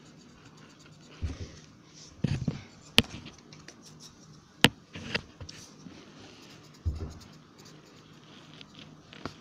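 A colouring pen scratching on paper in short strokes, close to the microphone, with a few dull knocks and two sharp clicks about a second and a half apart as the hand bumps the table and phone.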